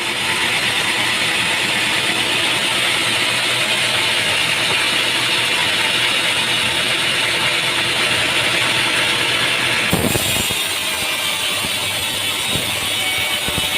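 Sawmill machinery running with a loud, steady mechanical noise. About ten seconds in the sound changes abruptly, with a single knock.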